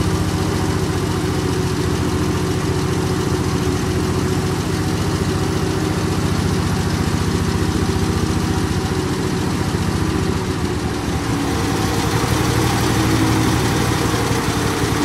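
Aircraft tow tractor's engine running steadily at low speed, getting a little louder about twelve seconds in.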